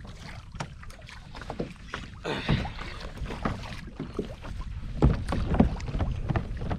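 Small waves lapping and slapping irregularly against a kayak's hull, with wind gusting on the microphone.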